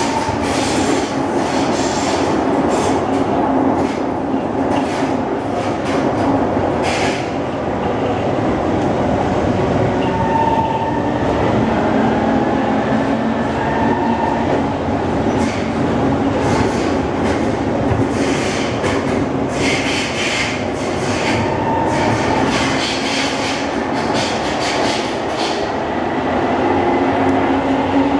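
SMRT C151 metro train heard from inside the passenger car while running through a tunnel: a steady rumble of wheels on rail, with scattered clicks throughout.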